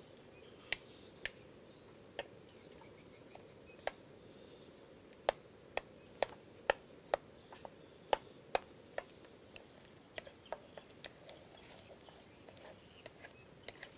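Wooden spatula tapping and scraping against a steel wok while tamarind sauce is stirred: irregular sharp clicks, a few at first, then a dense run in the middle, thinning out towards the end.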